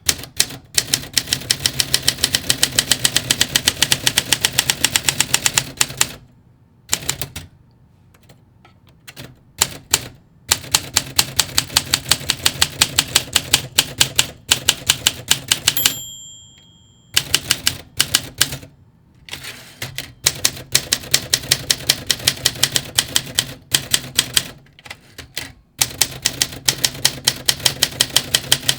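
Olympia SM5 manual typewriter being typed on fast, its typebars striking in quick runs of about five or six clicks a second with short pauses between, the keys now working freely after being unstuck. About sixteen seconds in, a single ringing tone sounds, the end-of-line margin bell.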